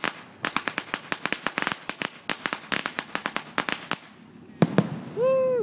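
Aerial fireworks: a rapid run of crackling pops for about three and a half seconds, then two sharp bangs and a loud firework whistle near the end.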